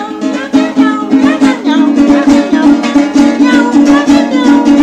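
Small acoustic guitar strummed in a quick, even rhythm, starting at once.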